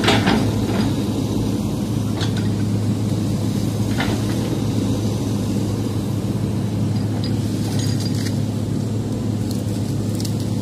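Hydraulic excavator's diesel engine running at a steady pitch while the bucket works through brush and logs. Occasional sharp knocks and cracks come from the bucket, branches and wood, the loudest right at the start.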